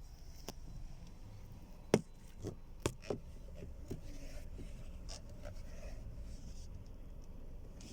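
Sharp clicks from a Hyundai Creta's steering as the wheel is turned, about half a dozen between two and four seconds in, the loudest about two seconds in. This is the knock in the steering wheel the owner is tracking down.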